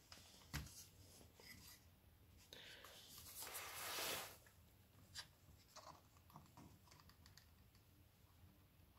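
Near silence with faint, scattered clicks and light handling of a hot glue gun and a plastic trim piece as hot glue is run into a gap, with a brief rustling scrape about three to four seconds in.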